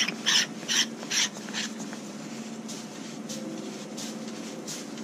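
Gloved hands twisting the threaded cap onto a Mishimoto oil catch can, giving short rasping strokes about two a second. The strokes fade out about a second and a half in, leaving a few fainter rubs over a low steady hum.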